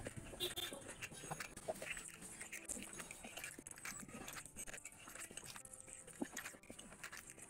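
Wet chewing and lip-smacking of a person eating rice and curry by hand, with squelches of the food being mixed: a run of soft, irregular clicks.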